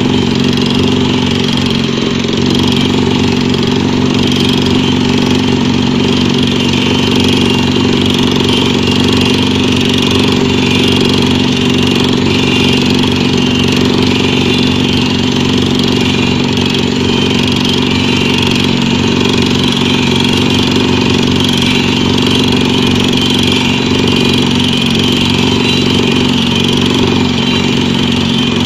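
Pneumatic drilling rig machinery running steadily, a loud constant engine-like hum with several steady tones that does not change.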